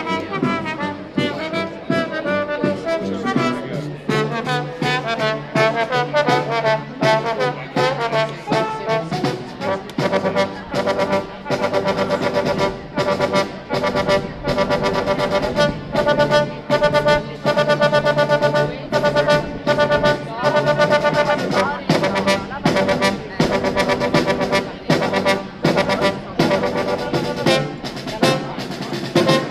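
A small military brass band of trombones, trumpet and tuba playing a tune, with a snare drum keeping a steady beat under it.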